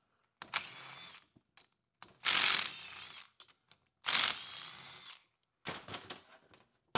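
Cordless driver spinning out the bolts that hold together a 4R70W automatic transmission's front pump: three short runs, each loudest as it starts and then running on with a high whine. A few metal clicks near the end as the pump is handled.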